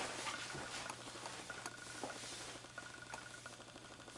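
Faint rustling and small clicks of clothing and handling as an apron's shoulder straps are adjusted, over a steady low hum and a faint on-and-off high tone.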